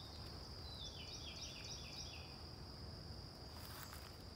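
Steady high-pitched insect trilling, with a bird's short run of quick descending notes about a second in, over a faint low rumble.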